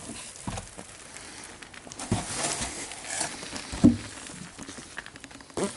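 A framed picture being pulled out and moved by hand: the frame scrapes and rustles against the slabs and dusty floor, with a few dull knocks, the loudest about four seconds in.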